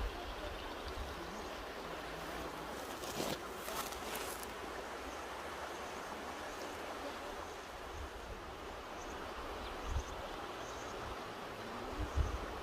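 Mountain river rushing steadily, with a low, uneven rumble of wind on the microphone. Brief louder hisses come about three to four seconds in.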